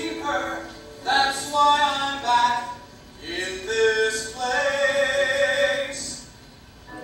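A male voice singing a musical-theatre song live on stage, in two long phrases with held notes and a short break between them, fading to a quieter passage near the end.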